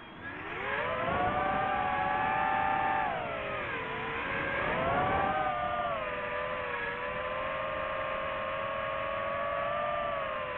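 DJI FPV drone's motors and propellers whining with throttle. The pitch climbs sharply in the first second, dips about three to four seconds in, rises again, then holds fairly steady.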